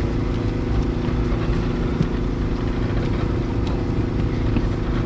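Small engine running at a steady, unchanging speed: a constant hum with a low rumble under it.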